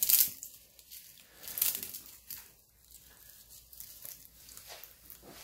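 Crumbled salted potato chip crackling and crinkling as it is broken by hand and dropped onto wood-shaving bedding, with faint rustles from the bedding. The loudest crackle comes right at the start, another about a second and a half in.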